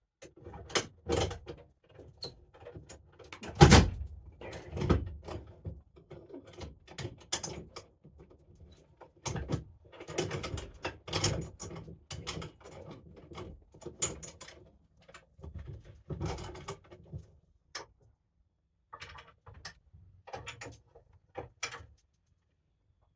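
Irregular metal clanks, clicks and rattles of a bench vise being worked and a metal ice-auger part being set into its jaws, with the loudest knock a few seconds in.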